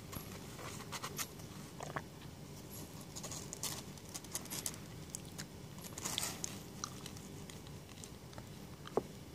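Faint scratching and soft clicking as kittens scrabble over the cardboard floor of a box and suckle from their mother cat. A short squeak comes near the end.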